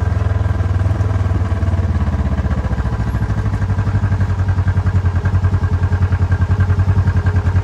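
An engine idling, with a steady pulsing rhythm that becomes more even about three seconds in.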